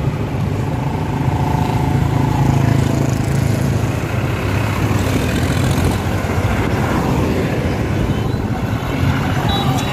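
Diesel tractor engines running as a column of tractors drives past on the road, a steady low engine sound that swells slightly as the nearest tractors pass.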